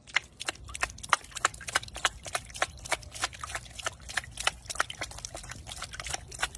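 A cat's paw slapping the water in a tub over and over, making quick, sharp splashes about five times a second.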